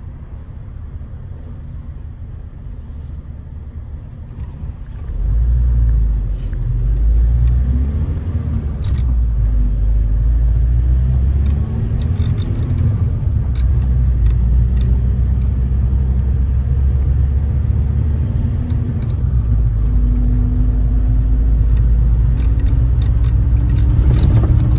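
Minibus engine heard from inside the cabin, ticking over at first, then pulling away about five seconds in and accelerating. Its pitch climbs and drops back several times as it goes up through the gears, with light rattles from the cabin.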